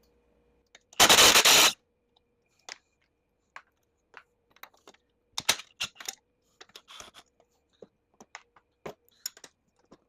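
A brief burst of a power drill about a second in, then scattered light clicks and knocks of hand work on the golf cart's parts.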